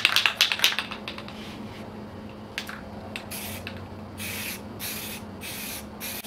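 Aerosol primer spray can: its mixing ball rattles quickly for about the first second as the can is shaken, then several short bursts of spray hiss as primer is dusted on.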